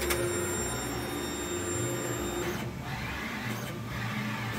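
Brother GTX Pro direct-to-garment printer running its platen drive as the loaded platen travels into the machine: a steady motor whine that changes and drops about two and a half seconds in, then carries on as softer mechanical running.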